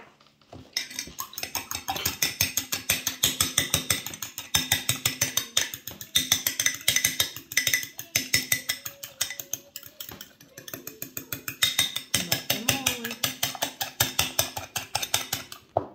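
A metal fork beating a raw egg in a small glass bowl. It makes a rapid, even clicking against the glass, many strokes a second, starting about a second in.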